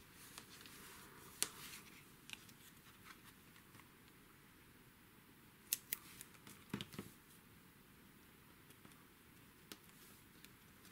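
Mostly quiet, with a few light taps and rustles of paper and card being handled and pressed down, and a short cluster of them about seven seconds in.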